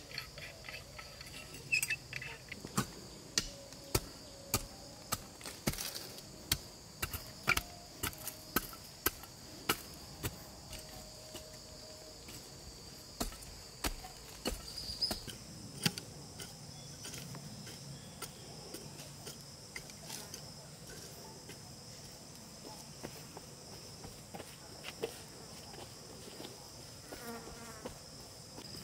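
A steady, high-pitched insect chorus, with repeated sharp knocks through about the first half and only a few after, from a hoe chopping into the soil.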